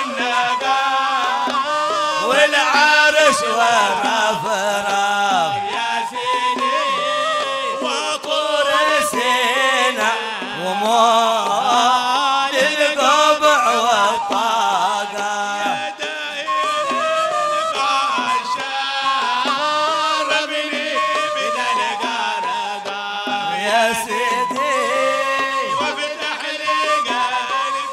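Men's voices singing a Hadhrami sung poem in Arabic, a melismatic chant-like melody that continues without a break.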